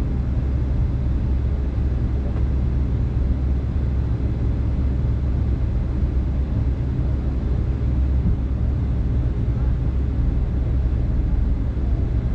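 Boeing 757-200 airliner in flight: a steady, low rumble of its Rolls-Royce RB211 engines and the rushing air, with no change in pitch or level.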